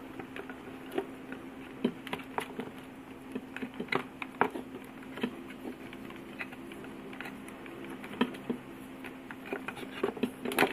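Electrical tape being pulled from the roll and wrapped around a twisted wire splice: irregular small crackles and clicks, with a steady low hum underneath.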